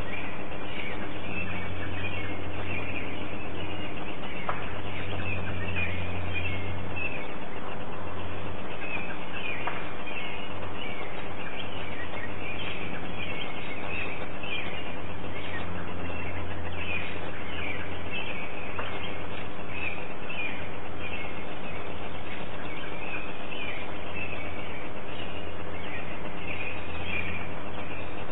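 Birds chirping over and over, over a steady low hum, with a few faint clicks, all heard through a narrow-band recorder that cuts off the higher sounds.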